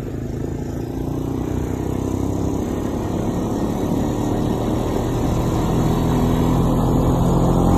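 ATV engine running as the quad is ridden along a snowy road, a steady hum that grows gradually louder.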